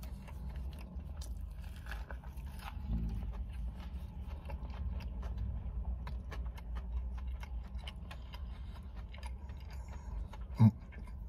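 Close-up chewing of a crispy-coated chicken wrap: a run of small crunches and wet mouth clicks, over a steady low rumble. A short vocal sound from the eater comes near the end.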